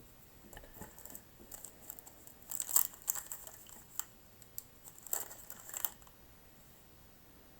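Baseball cards and wax-pack paper being handled: light rustling, crinkling and small clicks in short bursts, loudest about three and five seconds in, stopping about six seconds in.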